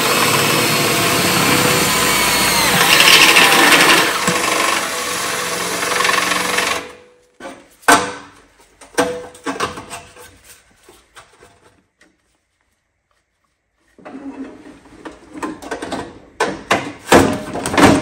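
Cordless drill spinning a step bit, cutting a 1 1/8-inch hole through a mower-tractor's front pan. It runs steadily for about seven seconds, then stops. A few sharp knocks and clanks follow as metal parts are handled.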